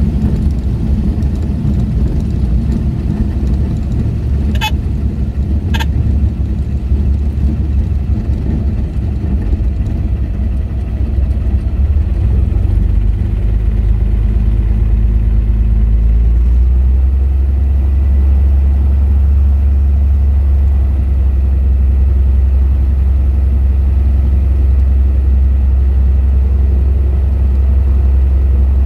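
Stinson light plane's piston engine idling as it taxis over a grass strip, heard from inside the cabin: a steady low rumble that settles lower and steadier about halfway through. Two sharp clicks a second apart near the start.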